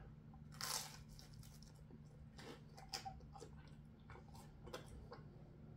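Faint chewing of a toasted cheese baguette (zapiekanka): a bite a little over half a second in, then quiet chewing with small wet clicks.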